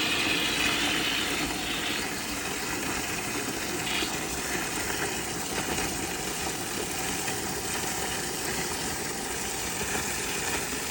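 Steady rush of water flowing through the tankless water heater's heat exchanger and out the flush hose, the cold line open to rinse the descaler out.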